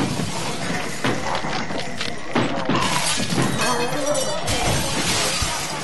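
Glass shattering and crashing, starting suddenly and going on in a dense, loud clatter of several impacts, with dramatic music underneath.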